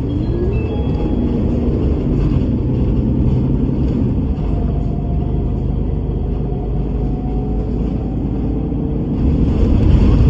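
A bus on the move: steady engine and road rumble, with faint engine tones sliding slowly in pitch. The low rumble grows louder about nine seconds in.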